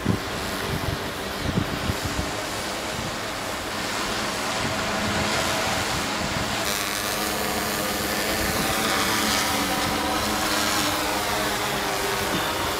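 Six-rotor drone (hexacopter) flying overhead, its propellers making a steady buzz of many tones whose pitch slides up and down in the second half as it manoeuvres. A few low bumps come in the first two seconds.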